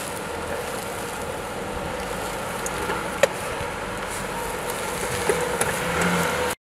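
Jeep Grand Cherokee L's engine running at low speed as the SUV crawls over a log obstacle, a steady drone. There is a sharp knock about three seconds in and a lighter one later, and the sound cuts off abruptly just before the end.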